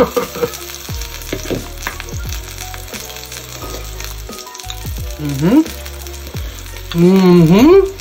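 Meat sizzling steadily on a Korean barbecue grill plate. A man's voice rises and falls briefly about five seconds in, then again louder and longer near the end.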